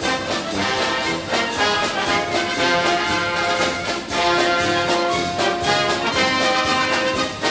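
Background music: brass band or orchestra with trumpets and trombones playing held notes over a steady beat.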